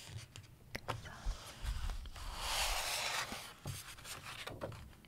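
A page of a large illustrated book being turned: a paper rustle a little past halfway, with light fingertip clicks and rubs on the paper around it.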